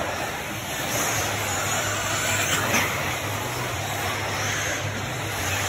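1/8-scale electric RC truggies racing on dirt: motors whining up and down as they accelerate and brake, over a steady noise of tyres and the track.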